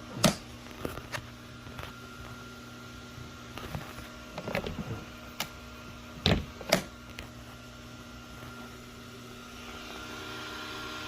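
Compressor nebulizer running with a steady motor hum, broken by a few short knocks; a soft hiss swells near the end.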